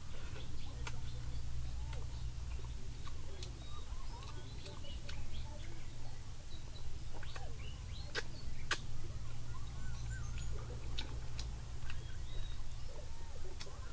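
Close-up eating sounds: chewing and smacking on fried eel, with sharp clicks of chopsticks picking at the food, over a low steady rumble. Birds chirp in the background.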